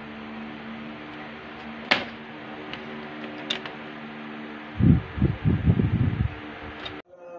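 Steady hiss and low electrical hum with two sharp clicks of a tool on a circuit board, then about a second and a half of low thumping and rubbing handling noise as fingers move right by the microphone. Near the end the sound cuts abruptly to chanting music.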